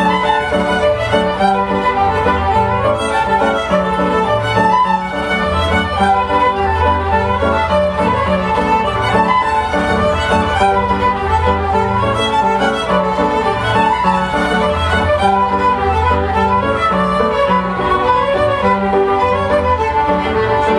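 A large fiddle ensemble, many violins bowing a tune together, over a plucked upright double bass.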